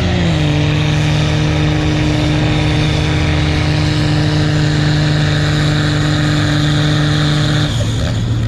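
Diesel pulling truck's engine running flat out at a steady pitch under full load as it drags the sled down the track, then the throttle is let off near the end and the engine note drops away.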